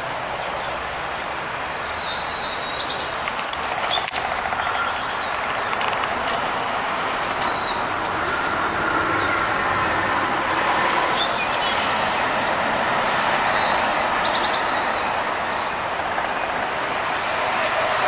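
Small birds chirping over and over in short, high calls, with a few quick buzzy trills, over a steady background rush that is the loudest sound.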